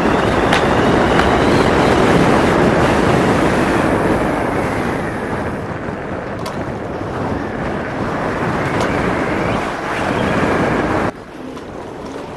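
Wind rushing over the microphone while riding an E-Mobo DuoTork electric kick scooter at speed. The rush eases a little about halfway through, then cuts to a much quieter level about a second before the end.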